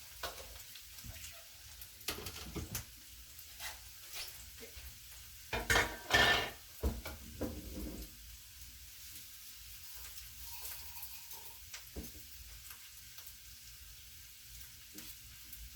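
Green beans frying in oil in a pan with a faint steady sizzle, and scattered clicks of a utensil against the pan. A louder clatter comes about six seconds in.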